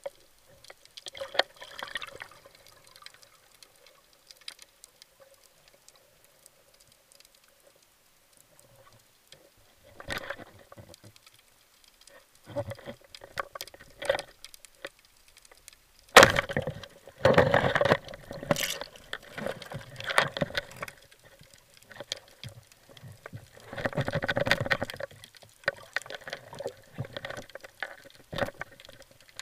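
Underwater sound of a spearfishing dive: water sloshing and scattered knocks, then a single sharp crack about halfway through, the speargun firing at a sea bass, followed by several seconds of loud churning water. A faint steady hum lies under it all.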